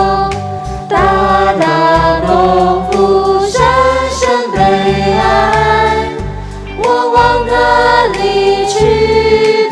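Christian worship song: voices singing a melody over instrumental backing with sustained chords.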